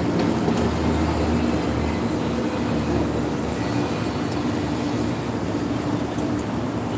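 Steady mechanical rumble and hiss with a faint low hum; no speech.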